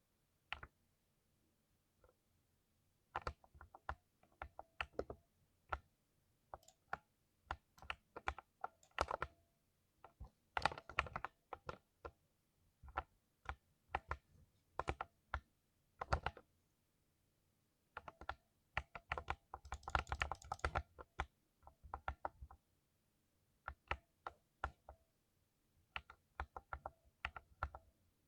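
Typing on a 60% mechanical keyboard with Silver Speed linear switches: irregular keystroke clacks in short bursts, with a fast flurry of keys about twenty seconds in.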